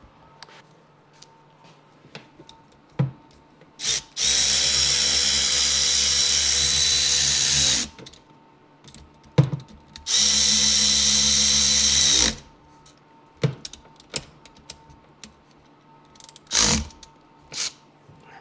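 Cordless drill/driver running fasteners down on a jet-ski engine: two steady motor runs of about three and a half seconds and two seconds, each winding down as the trigger is released, then two short blips near the end, with light clicks of tool handling in between.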